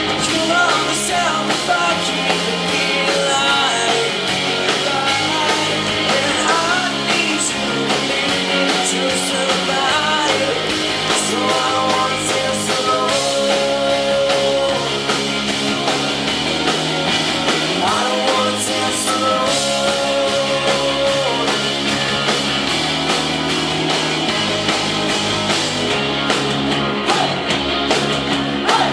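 Live rock band playing, with electric guitars, drums and bass, and singing that comes and goes over the band.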